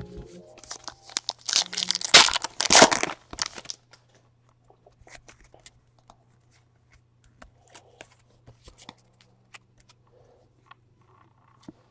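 Plastic wrapping on trading cards torn open and crinkled for about three seconds, then scattered soft clicks of the cards being handled and slid against each other.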